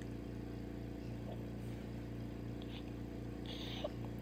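A steady low hum with faint small mouth clicks of someone chewing soft cake, and a brief soft rustle near the end.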